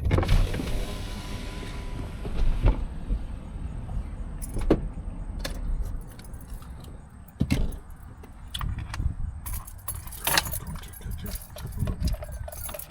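Keys jangling with scattered sharp clicks and knocks over a low rumble. A dense rush of noise fills the first two to three seconds.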